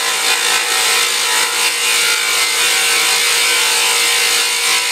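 Power-tool motor whining steadily as a 14 mm brazed diamond core bit grinds through porcelain tile.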